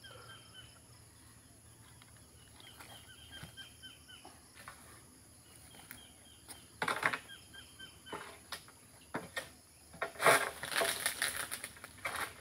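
Oil palm fronds being cut with a long-pole pruning tool: a few sharp crackling, rustling bursts about seven, eight and nine seconds in, then a longer stretch of thrashing, rustling leaflets from about ten seconds in. Faint bird chirps sound in the quiet first half.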